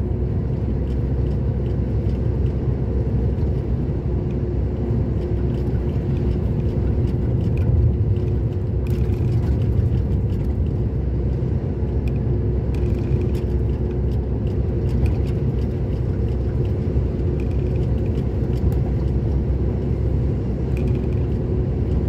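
Engine and road noise of a moving vehicle heard from inside the cab at highway speed: a steady low rumble with a faint even hum over it.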